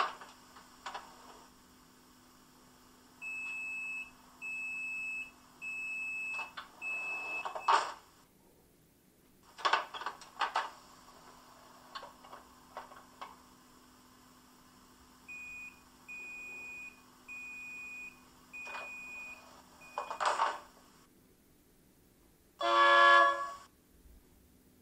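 Sound decoder of a Roco H0 class 628.4 diesel railcar model playing its door sounds through the model's small loudspeaker, twice over: clicks and hiss of the doors opening, then a row of steady warning beeps about one a second (four, then five) and a thud as the door shuts. A short horn blast follows near the end, over a faint steady hum.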